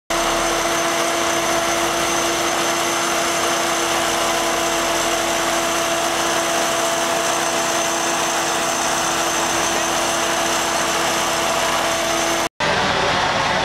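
Engine-driven fire-fighting equipment running at a fire scene: a loud, steady engine drone with a constant whine over it. The sound drops out for an instant about twelve and a half seconds in, then carries on.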